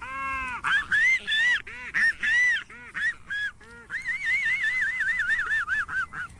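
Honking, goose-like bird calls offered as the voice of a velociraptor. There are several separate arched calls at first, then from about four seconds in a quick run of shorter calls, about four a second.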